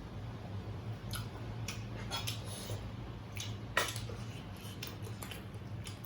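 Eating sounds at a meal: scattered light clicks and smacks of chewing and dishes, the sharpest a little under four seconds in, over a steady low hum.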